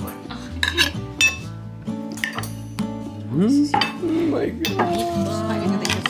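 Cutlery clinking against ceramic plates, several short sharp clinks, over background music.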